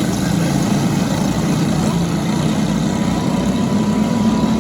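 Small single-cylinder four-stroke go-kart engines (Briggs & Stratton 206 class) running steadily.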